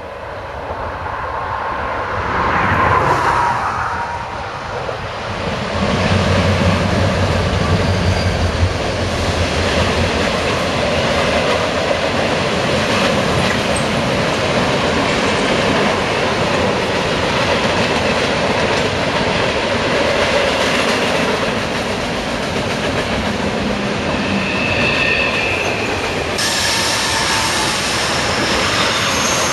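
Diesel-hauled freight train passing close by: the locomotives' engines go by in the first few seconds with a strong low drone about six seconds in. Then comes the steady rumble and clatter of the freight cars' wheels on the rails, with a brief wheel squeal on the curve near the end.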